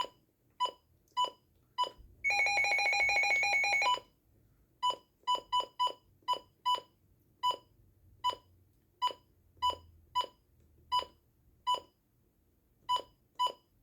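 Midland WR100 weather radio beeping as its buttons are pressed through the setup menu: about twenty short beeps of the same pitch at uneven spacing, with one buzzy tone held for about two seconds about two seconds in.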